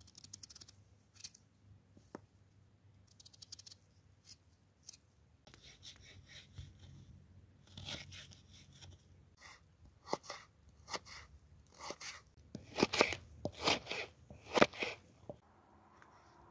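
Kitchen knife cutting peeled raw potatoes on a wooden cutting board: crisp slicing strokes through the potato, then a run of sharp chops of the blade onto the board, loudest toward the end.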